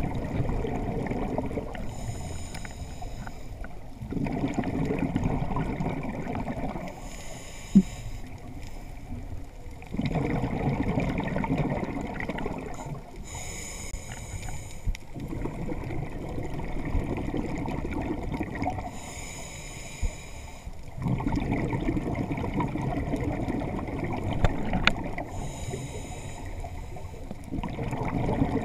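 Scuba diver breathing through a regulator underwater. A short hissing inhalation alternates with a longer rumble of exhaled bubbles, about once every six seconds, five breaths in all.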